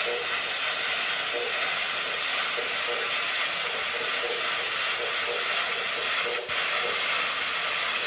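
Forney Easy Weld 20P plasma cutter cutting steel plate: a loud, steady hiss of the air and arc, with a momentary break about six and a half seconds in.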